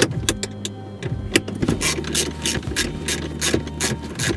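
Hand socket ratchet clicking in quick, even strokes, about four clicks a second, as it backs off an 8 mm nut.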